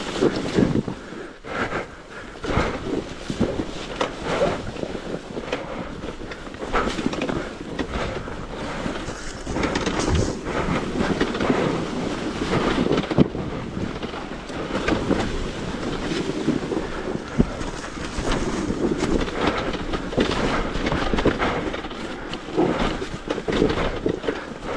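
Dirt bike ridden hard over rough, rocky ground: a fluctuating rumble with frequent knocks and clatter, and wind buffeting the microphone.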